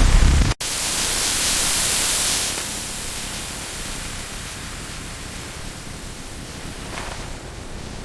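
A steady hiss with no clear rhythm or pitch, bright for about two seconds after an abrupt cut, then settling to a softer hiss.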